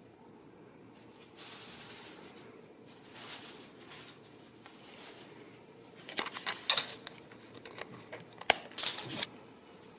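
Kittens playing on a rug: soft rustling, then a busier run of light taps and clicks in the second half, with one sharp click about eight and a half seconds in. A thin, steady high-pitched tone comes and goes near the end.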